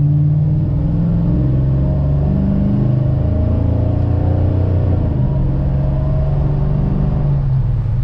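Swapped-in 5.7 Hemi V8 in a 1968 Dodge Charger running steadily with no revving, its pitch wavering slightly.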